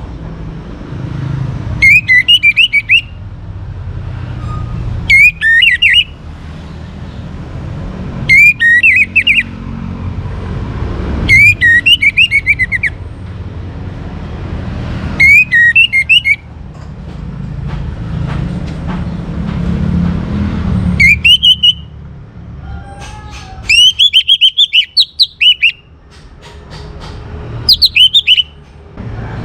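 Young orange-headed thrush singing: about eight short, loud, high warbling phrases a few seconds apart, one near the end running longer. A low rumble sounds underneath between the phrases.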